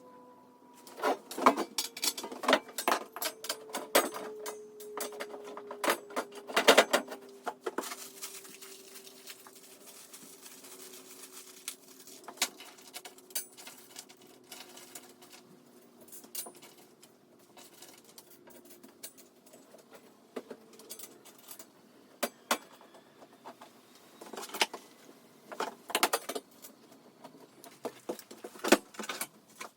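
Metal parts and tools clicking, clattering and rattling as a dust extractor is assembled by hand, in irregular clusters of sharp knocks. Under them a faint steady hum slowly drops in pitch and fades out about two-thirds of the way through.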